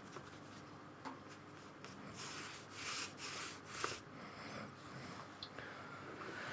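Soft rubbing strokes across paper, several in a row around the middle, with a couple of light taps.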